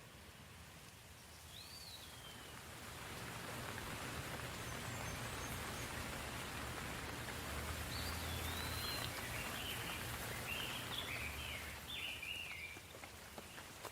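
Soft rain falling: it builds over the first few seconds and eases off near the end. A bird calls over it in short chirps, once early and several times in the second half.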